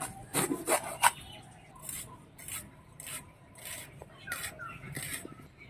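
A green bell pepper being sliced on a boti, its fixed curved iron blade, in a run of short, crisp cutting strokes about one every half-second to second.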